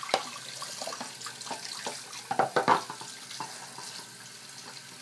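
Tap water running into a sink while a pet food bowl is rinsed out. A few knocks and clinks of the bowl come about halfway through.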